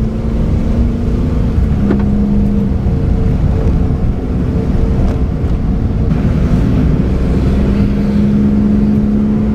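A car being driven, heard from inside: a steady low rumble of engine and tyres on the road, with a steady engine drone.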